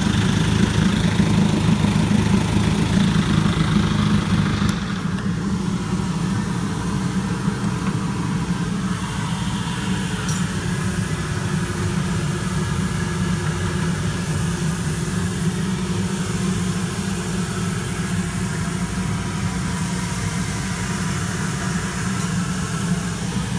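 1958 Evinrude 18 hp two-cylinder two-stroke outboard motor running steadily at low speed, freshly rebuilt and with its low-speed mixture just adjusted. It drops a little in level about five seconds in and then runs evenly.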